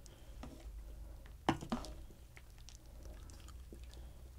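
Faint sounds of a steel ladle scooping stew from a stainless steel pot, with two short knocks of metal about a second and a half in.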